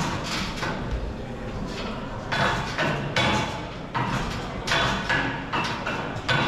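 A series of irregular knocks and clanks from ninja obstacle-course apparatus being gripped and swung on by a competitor, getting stronger and more frequent from about two seconds in.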